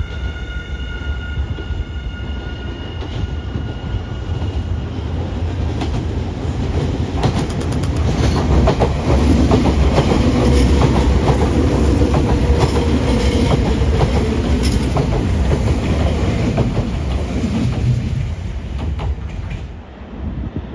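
Nankai 6200 series electric train running on the rails, with wheels clacking over the rail joints and a rumble that builds to its loudest in the middle, then eases off near the end. In the first few seconds a high whine falls in pitch and fades.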